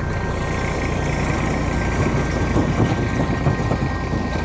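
Farm tractor engine running as it passes close by towing an empty trailer, with irregular clattering over the steady rumble. It is loudest about midway through, then starts to fade.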